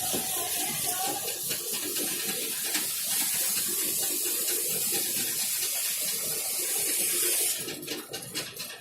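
Steady hissing of a turning tool cutting into wood spinning on a lathe, with a low hum under it. The cutting stops about seven and a half seconds in, leaving quieter scraping and a few light clicks.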